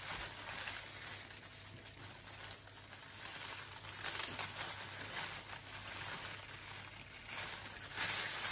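Plastic oven roasting bag crinkling and rustling in the hands as it is twisted shut and fastened with its tie, growing louder near the end.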